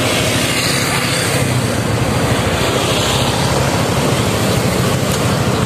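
Motorcycle engine running steadily while riding, with a constant rushing of wind noise over it.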